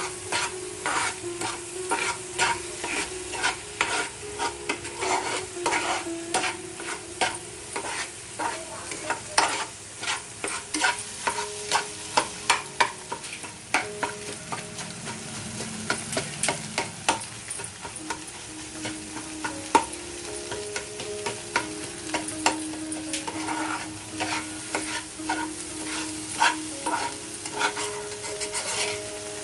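Spatula scraping and tapping against a non-stick frying pan, several irregular strokes a second, as scrambled eggs with onion and tomato are stirred and broken up, over a steady frying sizzle.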